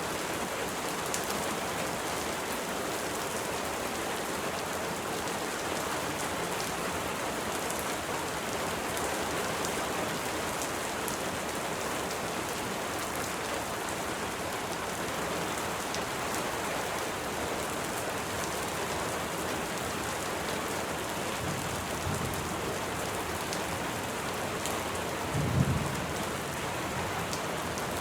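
Steady rain falling on a surface, a continuous even hiss with faint drop ticks. A brief low rumble rises out of it near the end.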